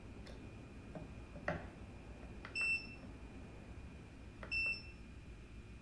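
Handheld digital force gauge giving two short electronic beeps about two seconds apart as its buttons are pressed. There is a sharp click about a second and a half in.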